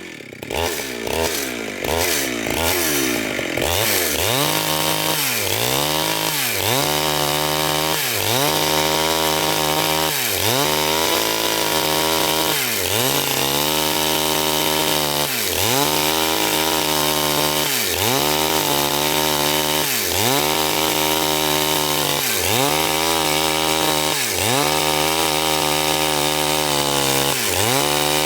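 Two-stroke chainsaw running hard while cutting through wood, its engine pitch dipping and climbing back over and over, about every two seconds.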